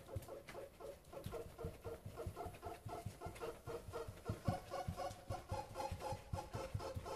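Bare feet thudding on the floor in quick repeated jumps during a workout, about two or three landings a second. A steady run of short pitched notes plays underneath.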